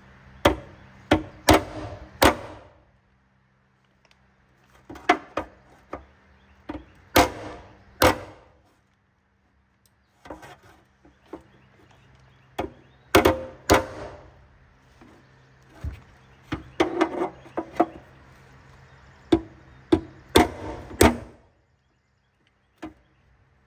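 Hammer strikes on a stamped-steel oil pan's bolt flange, body-working the flange flat where over-tightened pan bolts pulled it up around the bolt holes. The blows come in irregular groups of a few strikes with short pauses between.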